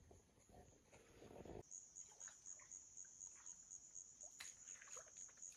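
Faint high-pitched insect chirping, an even pulsed trill of about five chirps a second. It starts about a second and a half in, where a low muffled rumble cuts off suddenly.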